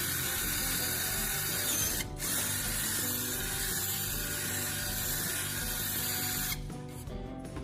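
Power drill running steadily, with a brief stop about two seconds in, cutting off near the end; background music plays under it.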